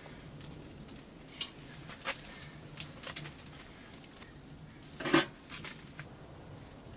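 A handful of sharp, separate clinks and knocks at irregular intervals over a faint steady background, the loudest about five seconds in.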